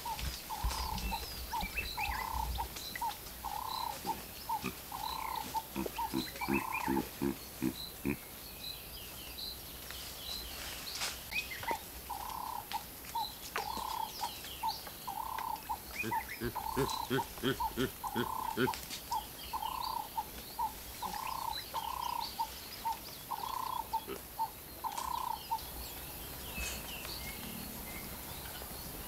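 Wild animal calls: a clear piping note repeated in long runs, about twice a second, which stops near the end. Twice it is joined by a quick train of low croaking pulses, and faint high chirps run underneath.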